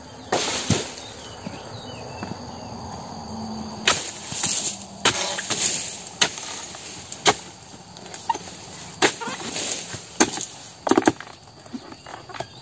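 Oil palm harvesting chisel (dodos) on a pole striking and chopping into an oil palm's frond bases and fruit-bunch stalk, about ten sharp, irregularly spaced blows, cutting a bunch loose.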